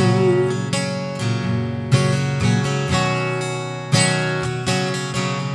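Acoustic guitar strumming chords, with strong fresh strums about two and four seconds in, each chord left to ring.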